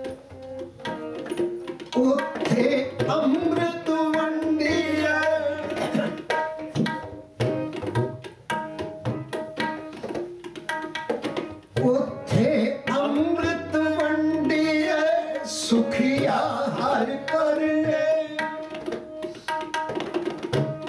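Sikh kirtan: a man's voice singing a line of gurbani in two long phrases over sustained harmonium chords, with tabla strokes throughout.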